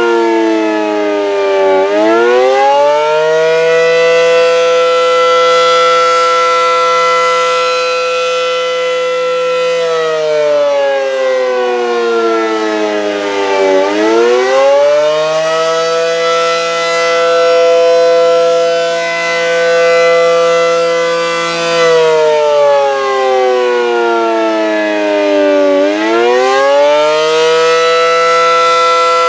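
ACA Allertor 125 tornado siren sounding the attack signal: a loud, many-toned wail that rises quickly, holds its pitch for about eight seconds, then falls away over about four seconds before rising again, repeating roughly every twelve seconds.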